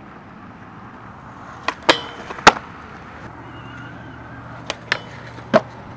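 Skateboard wheels rolling on concrete, with sharp clacks of a board striking the ground: two close together a little under two seconds in, a louder single one at about two and a half seconds, and three more in the second half.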